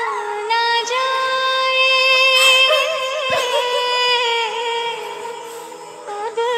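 A song with a female singing voice holding one long note that wavers partway through, then fades, with a new phrase starting near the end.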